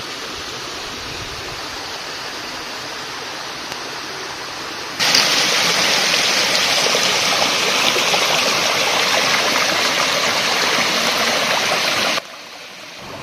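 Waterfall rushing: a steady roar of falling water that jumps abruptly louder about five seconds in and drops abruptly quieter about a second before the end.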